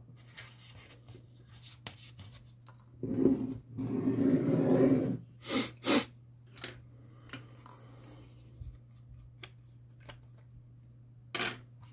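Close-up hand-work sounds from a loudspeaker dust-cap repair: a rustling scrape lasting about two seconds, then two sharp clicks in quick succession and another near the end, over a faint steady hum.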